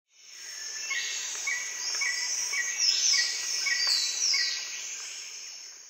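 Birdsong: short chirps repeating about twice a second, with a few higher falling whistles in the middle, over a light hiss. It fades in at the start and fades out near the end.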